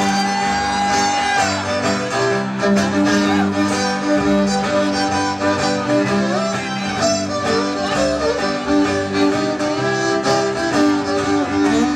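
A fiddle taking a solo in a live acoustic band: a bowed melody of held notes with some slides, over guitar accompaniment.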